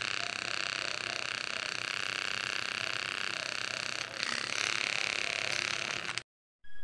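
A handheld USB rechargeable milk frother's small motor and whisk spin freely in the air with a steady high whine. The whine dips briefly about four seconds in, picks up again, and cuts off suddenly shortly before the end.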